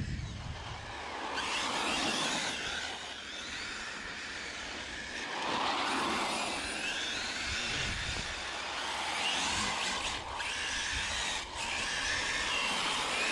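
Custom 6S brushless electric RC rally car's motor and drivetrain whining, the pitch sliding up and down again and again with the throttle, over tyre noise on asphalt.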